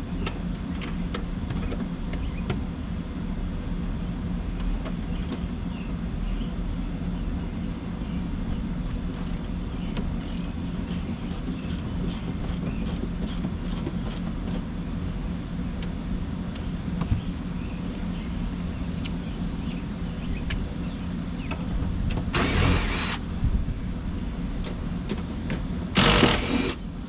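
A socket ratchet works the seat bolts loose, clicking evenly about twice a second for several seconds. Near the end come two short, loud rasping bursts. A steady low rumble sits underneath.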